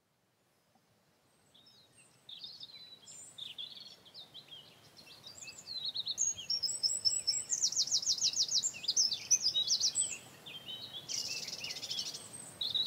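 A songbird singing a fast, varied song of high warbles and rapid trills. It begins about two seconds in and is loudest in the middle.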